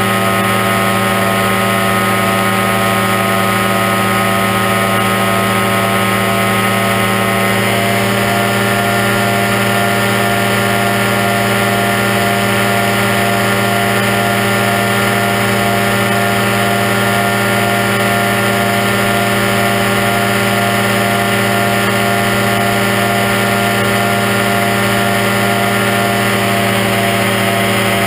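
Aerochute powered parachute microlight's engine and propeller running steadily in cruise flight, an even drone that holds one pitch.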